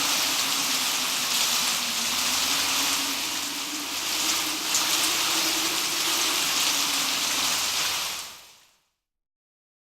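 Steady, heavy rain hissing down in a windswept storm, with a low, wavering wind moan beneath it. It fades out about eight seconds in.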